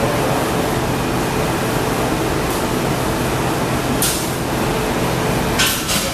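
Steady roar of a glassblowing hot shop's running fans and equipment, with a low hum underneath. There are two short hisses, one about four seconds in and one near the end.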